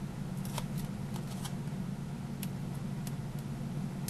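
Faint scattered ticks and rustles of fingers peeling the paper backing off foam adhesive pop dots and handling a cardstock circle, over a steady low hum.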